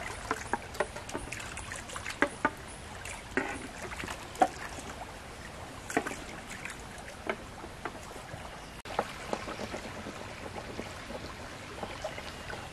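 Shallow forest stream flowing, a steady rush of water with scattered small plops and gurgles.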